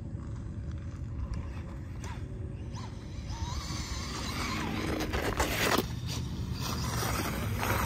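Losi Promoto-MX RC dirt bike's electric motor whining, its pitch rising and falling with the throttle as the bike approaches, over a steady low rumble. A loud rushing burst comes about five seconds in.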